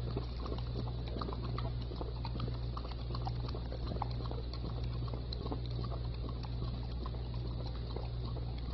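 A dog lapping coffee from a cup with its tongue: quick, irregular wet clicks and slurps, over a steady low hum.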